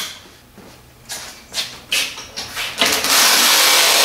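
Scattered clicks and knocks of metal parts being handled on a small engine, then a loud, even rushing noise lasting about a second and a half near the end.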